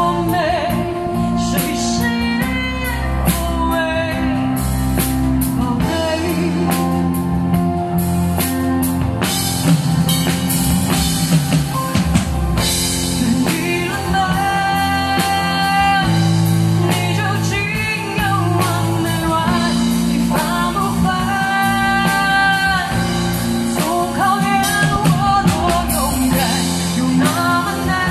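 Live band playing a pop song: a female singer with electric guitar, keyboard and drums. The vocal line is clearest in the second half.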